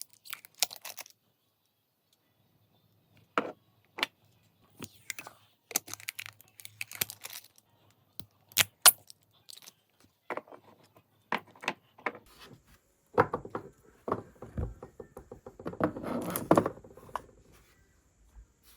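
Small objects and packaging being handled: scattered clicks, taps and light rattles, with a busier stretch of rustling and rattling about thirteen to seventeen seconds in.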